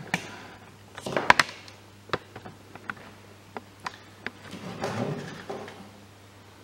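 Handling sounds of a hobby knife trimming soft paper-pulp putty off a diorama base: scattered sharp clicks and knocks, the loudest about a second in, as knife and base are set down and picked up on a cutting mat, with a short scraping rustle about five seconds in.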